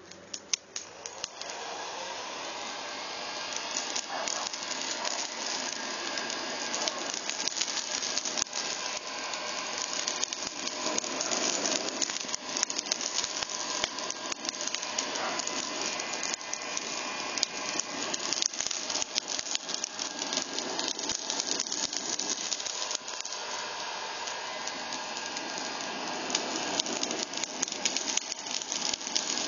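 Ozito heat gun running, its fan blowing a steady rush of hot air into charcoal in a kettle grill; it starts about a second in and builds over the first few seconds. Frequent small crackles and pops from the charcoal as it catches.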